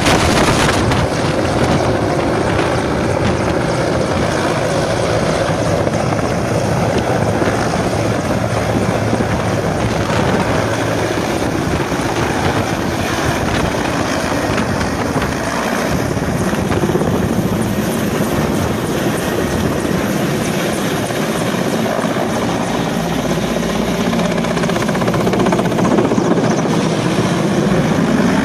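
Rotor and turbine noise of a low-flying Mi-17-type military transport helicopter, a loud, steady beat of its main rotor close overhead.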